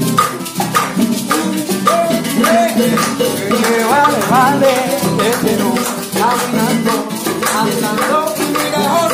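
Live acoustic Latin music: wooden claves clicking and a gourd maraca shaking in a steady rhythm over guitar, with a voice singing.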